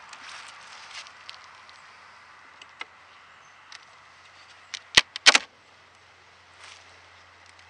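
A metal hive tool knocking and clicking against the wooden hive box: scattered light clicks, then a quick cluster of sharp, loud knocks about five seconds in.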